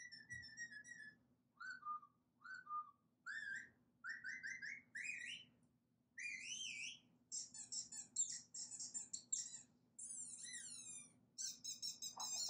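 A bird singing a varied song of whistles and chirps: a held whistle, short rising notes, a wavering glide, a fast chirping trill about seven seconds in, then a few falling sweeps.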